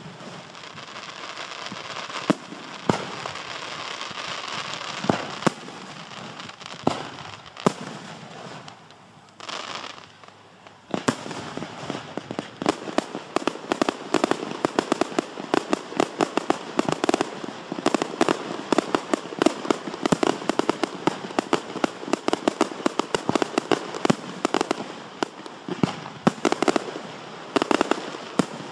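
Display fireworks, aerial shells and cakes, launching and bursting: scattered sharp bangs over a steady hiss for the first ten seconds, then dense rapid popping and crackling from about eleven seconds on.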